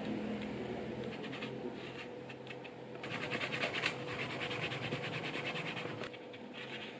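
A dauber on a short handle rubbed rapidly back and forth along the stitched edge of a leather wallet, giving a quick run of rubbing strokes that is loudest from about three to six seconds in.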